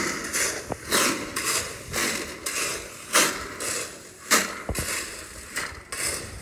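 Footsteps crunching on gravelly, sandy ground, about one step a second.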